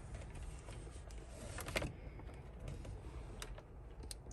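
Faint clicks and small rattles of a screwdriver working a screw out of dashboard trim. There is a cluster of sharper clicks about a second and a half in and a few single clicks later, over a low steady rumble.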